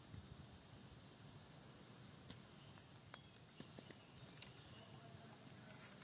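Near silence with a few faint sharp crackles as dry twigs and grass catch fire at the base of a kindling pile.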